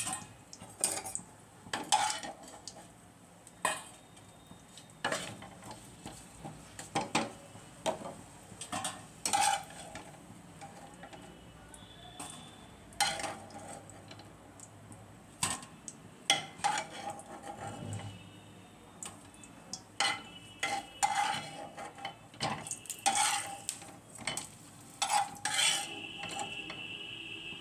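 Spatulas knocking and scraping against a non-stick frying pan as potato chunks are turned and lifted out of shallow oil, over a light sizzle of frying. Sharp knocks come irregularly, every second or two.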